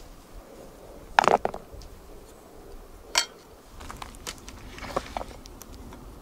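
Metal cutlery and a wooden plate knocking and clinking on a wooden plank table: a cluster of sharp knocks about a second in, a single sharp click a couple of seconds later, then lighter clicks as a knife and spoon start cutting a steak on the plate.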